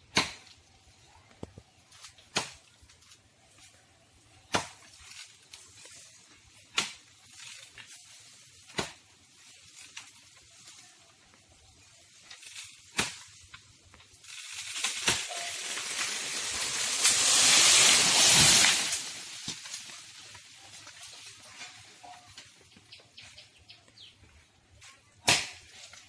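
Sharp chopping strikes into an Indian date palm trunk, about one every two seconds. About halfway through a rushing swish of fronds swells for some four seconds and stops sharply as the palm falls, then chopping resumes near the end.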